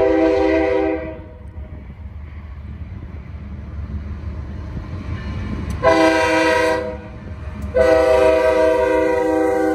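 Air horn of a BNSF diesel locomotive leading a freight train past. A long blast ends about a second in, a short blast comes near six seconds, and another long blast starts near eight seconds. Between the blasts the low rumble of the diesel engines and the rolling train is heard. The long–short–long pattern is the close of a standard grade-crossing horn signal.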